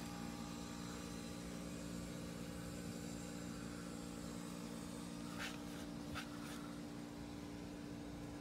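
Steady low mechanical hum, like a motor running somewhere near, with a few faint brief ticks or rustles about five and six seconds in.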